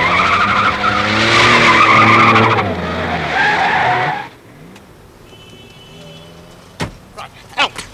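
Car tyres squealing and skidding on a car-park ramp over a running engine for about four seconds, then cutting off. A single sharp knock comes near the end.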